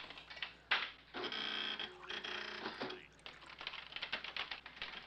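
A keyboard printing terminal clattering in rapid runs of clicks as keys are typed and the print head strikes. A steady pitched tone sounds for about a second and a half near the start.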